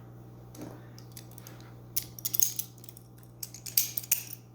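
Vintage Valor Cutlery butterfly knife being flipped by hand: its metal handles and blade click and clatter in two quick bursts, one about two seconds in and another near the end.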